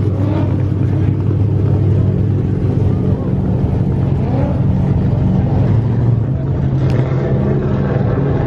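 Ford Focus RS's turbocharged four-cylinder engine idling steadily, its note rising slightly about seven seconds in.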